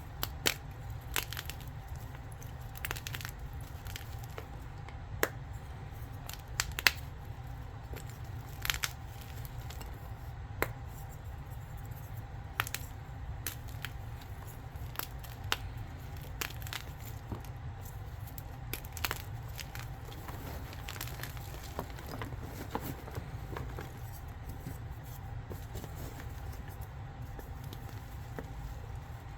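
Blocks of gym chalk being crushed by hand: irregular crisp crunches and crackles, a few sharper snaps standing out among softer crumbling.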